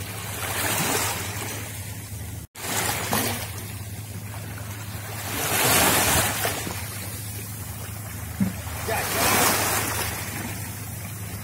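Small sea waves washing onto a stony shore, rising and falling in surges every two to three seconds, with wind on the microphone. The sound cuts out for an instant about two and a half seconds in.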